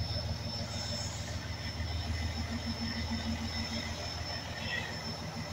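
Heavy rescue fire truck's diesel engine idling: a steady low rumble with a faint, even throb, and a thin high whine over it.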